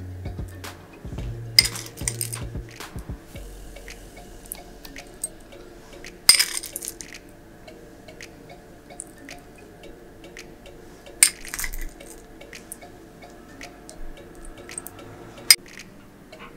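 A metal spoon clinks sharply about four times, a few seconds apart, with smaller ticks in between, as chocolate chips are spooned onto the dessert. Soft background music plays under it.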